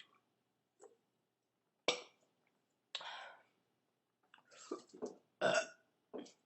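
About six short, quiet throat and mouth sounds from a woman, scattered and separate, with a sharper click about two seconds in.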